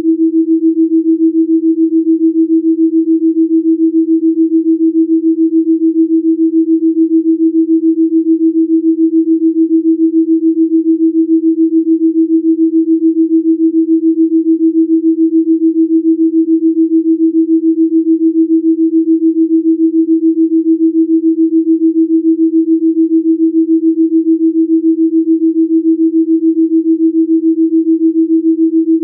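Electronic pure sine tone at about 300 Hz, held steady and pulsing evenly several times a second: a Rife-frequency tone carrying a delta binaural beat.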